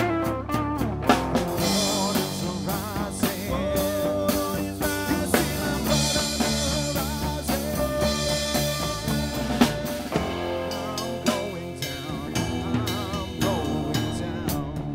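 Live band playing an instrumental passage: drum kit keeping a steady beat under sustained guitar notes, some of them bent or wavering.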